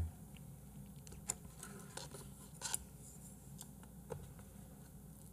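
Faint, scattered clicks and scrapes of wooden chopsticks against a plastic takeout tray and slices of raw beef, with a few sharper ticks in the first three seconds.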